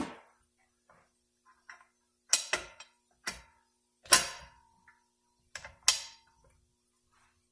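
Sharp metallic clinks and knocks, about six of them, as the steel band and other parts are handled against the drum inside a 46RE automatic transmission case. The loudest comes about four seconds in, and it and one other ring briefly.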